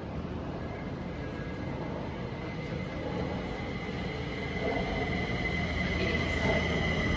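Kaohsiung MRT Red Line metro train running at the platform. Its low rumble grows steadily louder, and a steady high whine comes in about halfway through.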